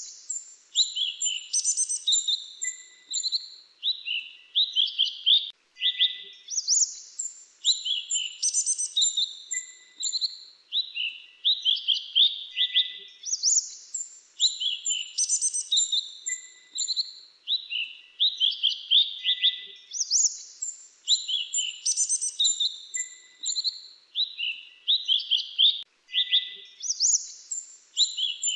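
Song of the mantenan dagu kelabu (grey-chinned mantenan): quick runs of high, sliding chirps in a phrase of about five seconds, repeated about every six and a half seconds.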